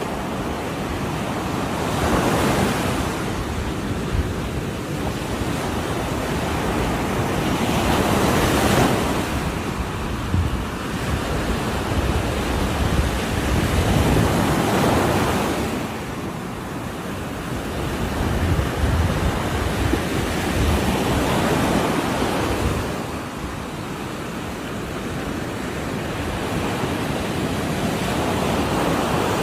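Ocean surf breaking on the shore: a continuous wash of water, with a wave surging up about every six seconds.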